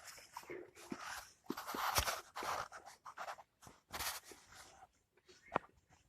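Irregular scraping and rustling in short bursts, mixed with sharp clicks and knocks, louder around the middle and quieter near the end.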